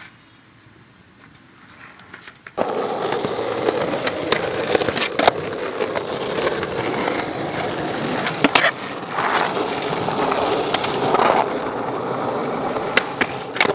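After about two and a half seconds of quiet, a skateboard rolls over rough concrete with a steady, gritty rolling noise from its wheels. A few sharp clacks from the board stand out now and then.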